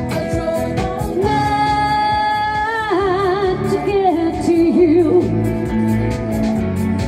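Live female pop singing over a backing track played through a PA speaker. A long held note turns into vibrato about three seconds in.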